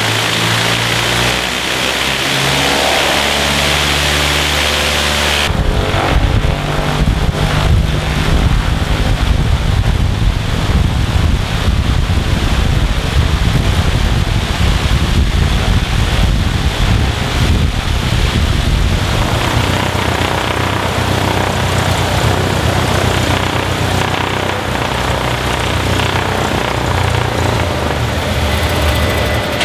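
Cessna 172's piston engine and propeller running steadily, the sound changing abruptly about five seconds in and again about two-thirds of the way through.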